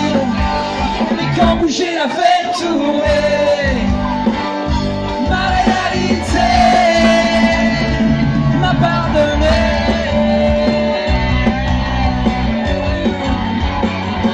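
Live rock band playing loud through a PA, electric guitars, bass guitar and drums, with a male singer singing over them.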